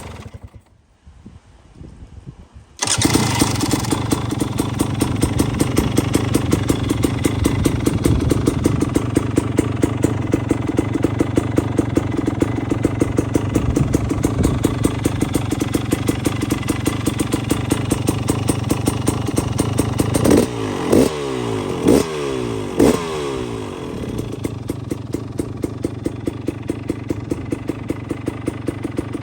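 A 2022 Husqvarna TE300i two-stroke enduro engine starts from cold a few seconds in and idles with a steady, rapid exhaust beat. It is revved three times in quick succession about two-thirds of the way through, then settles back to idle.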